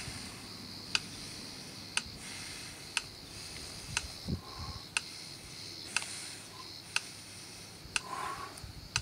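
Steady clock-like ticking, one sharp tick every second, over a faint steady high hiss. There is a single soft low sound about four seconds in.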